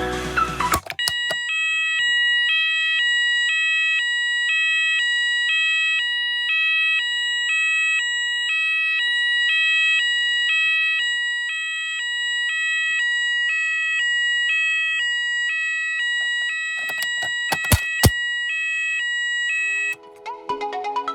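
Klaxon Sonos electronic fire alarm sounder going off with a steady high tone and a second pitch alternating back and forth at an even rhythm. A few sharp clicks sound near the end, then the alarm cuts off suddenly.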